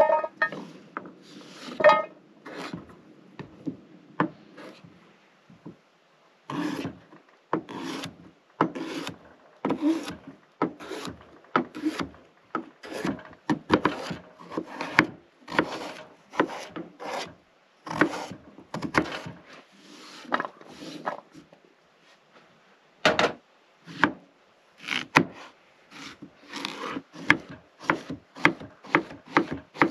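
Kitchen knife slicing sweet potato and then zucchini on a wooden cutting board, each cut ending in a knock of the blade on the board. About one cut a second, speeding up to about two a second near the end.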